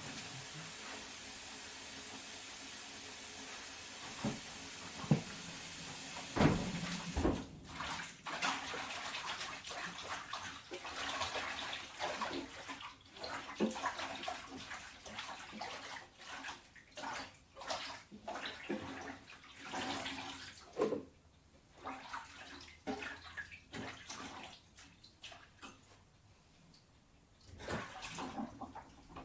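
Water running and splashing in a kitchen sink in irregular spurts, as when salad vegetables are washed. A steady hiss fills the first seven seconds and cuts off suddenly.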